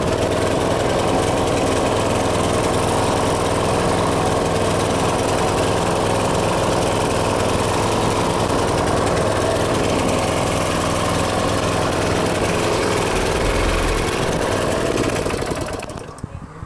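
Briggs & Stratton engine of a DR Power Wagon dump cart running steadily, then shutting off about fifteen seconds in, the sound dying away near the end.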